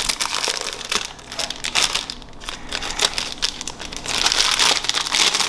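Plastic packaging crinkling and rustling in the hands as a pop-it fidget toy is handled, loudest near the end.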